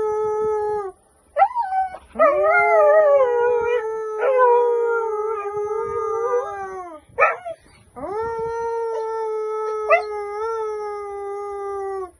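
A dog howling in a duet with a woman who holds long, steady 'oo' notes along with it; the dog's howls waver and rise over the steady tone. The sound breaks off briefly about a second in and again around seven seconds, and stops sharply at the end.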